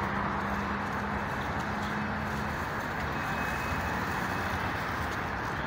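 Steady outdoor city ambience: a constant wash of road traffic noise, with a low steady hum that fades out about two and a half seconds in.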